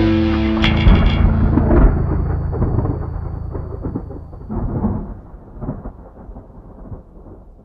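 A thunderclap cracks just under a second in, over the last of a ringing heavy-metal chord, then rolls on as a rumbling, crackling storm sound that slowly fades out.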